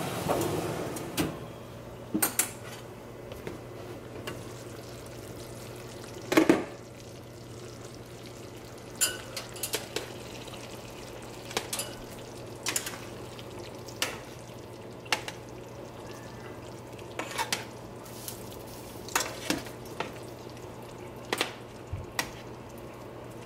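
Metal tongs clinking against a square metal pan as oxtails in gravy are turned, with sharp clicks every second or so. There is a clatter at the start and a louder clank about six seconds in, over a steady low hum.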